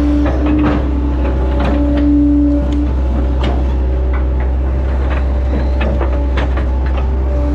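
Hitachi Zaxis 110 excavator running steadily under load. A pitched hydraulic whine comes and goes as the boom and bucket move, with scattered clunks and rattles from the machine.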